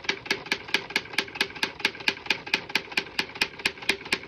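Antique Underwood manual typewriter being typed on steadily, its typebars striking the platen in an even run of sharp clacks at about six a second, keys driven toward the end of the line to trip the margin bell.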